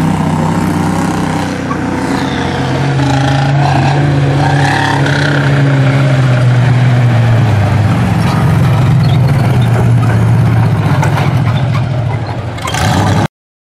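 Off-road vehicle engines running hard under load as Jeeps climb the dirt hill course, their pitch drifting up and down. The sound cuts off suddenly near the end.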